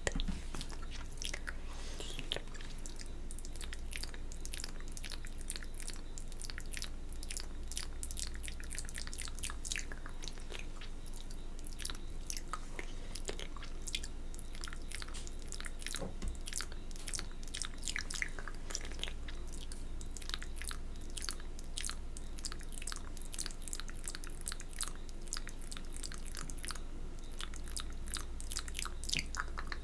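Close-miked wet mouth sounds from spit painting: rapid, continuous clicking, smacking and licking.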